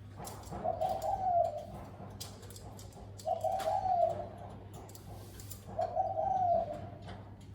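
Spotted dove cooing: three similar phrases, each about a second long, coming about every two and a half seconds.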